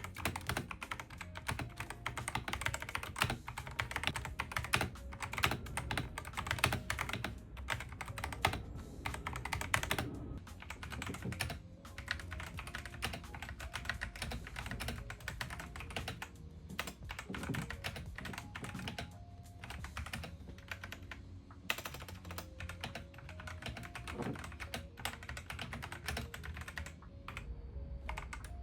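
Kreo Hive mechanical keyboard with tactile brown switches being typed on: a fast, continuous clatter of keystrokes, broken by a few brief pauses.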